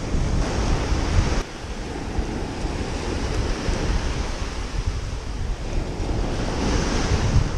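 Surf breaking and washing up a sand beach, with wind buffeting the microphone. The wash swells louder near the end.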